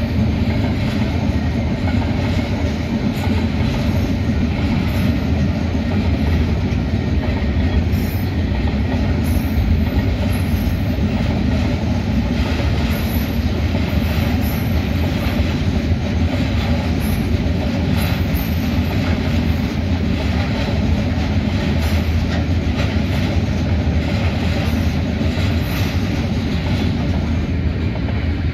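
Freight wagons of a mixed freight train rolling past over a level crossing: a steady heavy rumble with wheel clatter on the rails, easing off at the very end as the last wagon clears.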